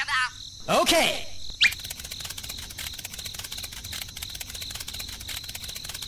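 Insects, crickets by their sound, chirping in a steady, rapid, high-pitched trill that takes over about two seconds in. A short swooping sound comes just before it.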